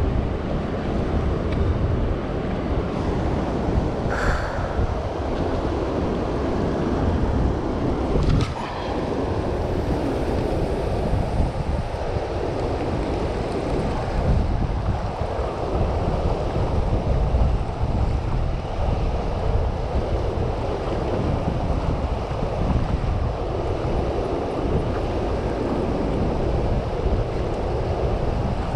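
Steady rush of turbulent tailwater pouring out below a hydroelectric dam with its generators running, with wind buffeting the microphone. A couple of brief ticks stand out about four and eight seconds in.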